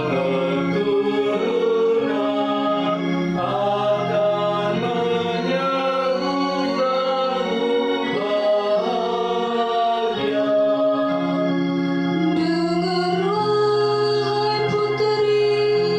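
A woman singing a responsorial psalm in Indonesian into a microphone, over held accompaniment chords. About twelve seconds in she moves from the refrain into a verse.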